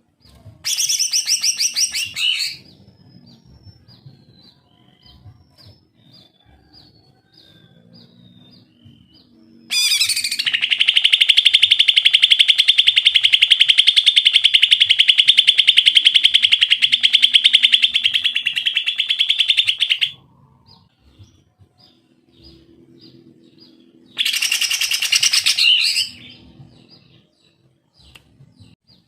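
Male green leafbird (cucak ijo) singing: a loud burst of song, then a long, fast, buzzing trill lasting about ten seconds, and another loud burst near the end, with soft chirps between.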